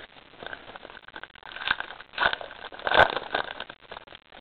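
Trading card booster pack wrapper crinkling and rustling as it is handled and torn open, with cards shuffled in between; the loudest rustles come about halfway through.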